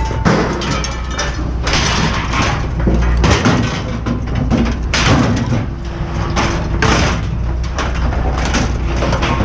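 Scrap yard din: a heavy machine's engine rumbles steadily while loud crashes and clatter of metal scrap come every second or two.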